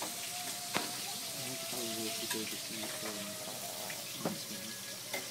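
Cutlery clinking against plates a few times over a steady hiss, with faint voices in the background.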